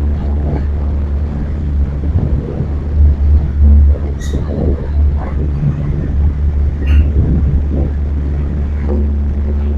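Wind buffeting the microphone as a steady low rumble, with faint voices of people behind it and a couple of short clicks.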